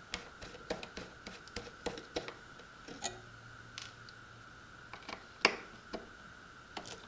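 Torx screwdriver unscrewing the metal skid-plate screws from the plastic hull of an RC boat: scattered light clicks and taps of the bit, screws and tool, the sharpest a little over five seconds in.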